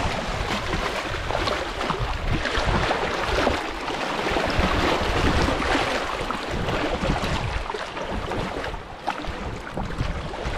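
Choppy lake water lapping and splashing over shoreline boulders, in an uneven wash of small splashes, with gusty wind rumbling on the microphone.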